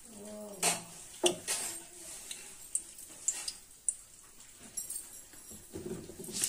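Kitchen utensils and spice containers being handled on the counter: a series of sharp clinks and knocks, about five of them in the first four seconds.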